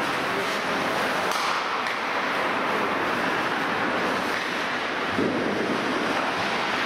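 Steady rushing noise of an ice hockey game in a rink, with faint scrapes and clicks through it and a louder low rush about five seconds in.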